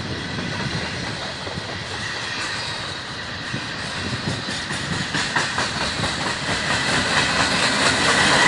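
Freight train tank cars and gondolas rolling past, wheels clicking rhythmically over rail joints. The sound grows louder over the second half, with a thin steady high ring above the rolling.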